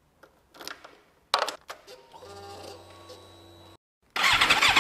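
A few handling clicks, then a steady electric hum for about a second and a half, typical of the fuel pump priming on a Suzuki GSR 750. After a short gap the inline-four engine starts up loud near the end, its first run on fresh oil to fill the new oil filter.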